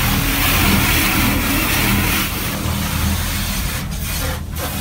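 High-pressure water jets of a LaserWash 360 touchless car wash spraying against the car, a loud steady hiss heard from inside the cabin over a low machinery hum. The spray thins out near the end.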